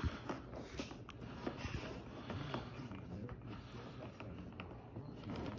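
Hands handling a toy's cardboard box and plastic packaging while untwisting twist ties: scattered small clicks, scrapes and rustles.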